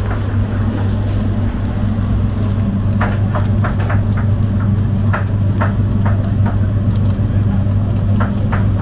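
Metal kebab skewers clinking against each other and the grill as they are turned over charcoal, a quick run of about a dozen sharp clinks in the middle, over a steady loud low motor hum.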